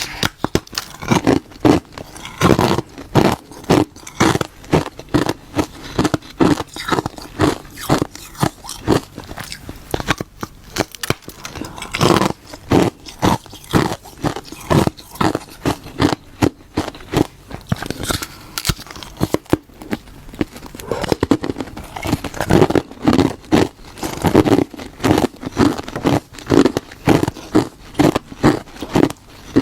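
Crunchy ice being bitten and chewed close to the microphone, a steady run of sharp crunches and cracks about two or three a second.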